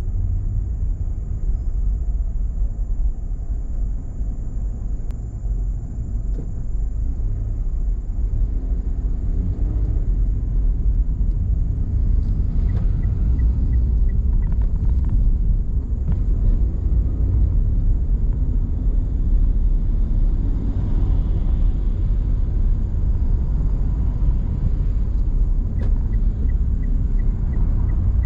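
Steady low rumble of a car driving on an expressway, mostly road and tyre noise with engine. Faint evenly spaced ticks come in two short stretches, about halfway through and near the end.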